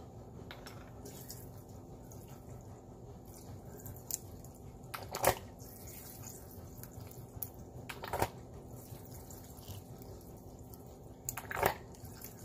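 Plastic bottle of lemon juice squeezed upside down over a plastic bowl of seafood: juice squirting and dripping into the bowl, with three louder squirts about three seconds apart.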